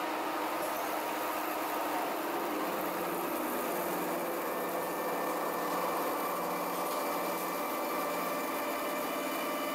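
Horizontal boring mill's spindle turning a disc-shaped milling cutter across a metal block under flooding coolant. It makes a steady machine hum with several held tones over a hiss.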